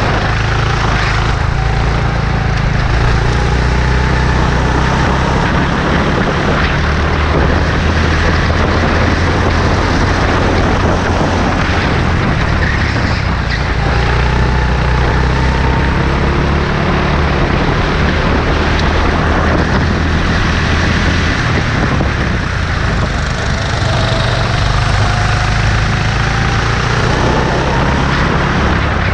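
Go-kart engine heard from on board the kart, running hard throughout, its pitch rising and falling again and again as the driver accelerates and lifts through the corners.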